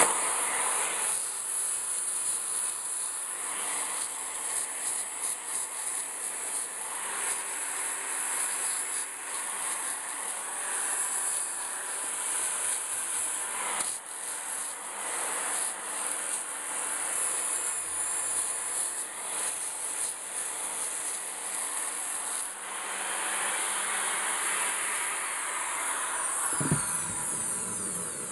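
Corded electric drill running a 120-grit flap wheel against a rusty steel sledgehammer head, sanding off the rust: a steady high motor whine with a rough grinding hiss that rises and falls as the wheel is pressed on and moved over the metal.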